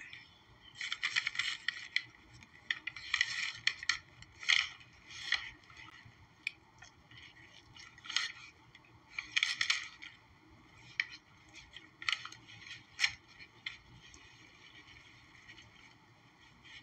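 Close-up eating sounds of a steak and cheese sub being bitten and chewed, mixed with paper rustling from its wrapper and napkin. They come as irregular crackles and rustles that thin out over the last few seconds.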